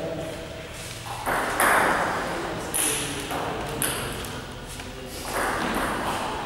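Table tennis rally: a celluloid-type ball clicking sharply off the paddles and the table several times, about a second apart.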